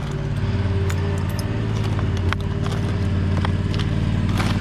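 Lawnmower's small engine running steadily and growing gradually louder as it approaches, with a few faint clicks.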